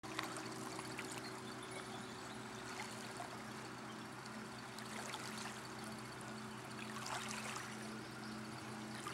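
Water lapping and splashing against a small boat's hull, over a steady low motor hum.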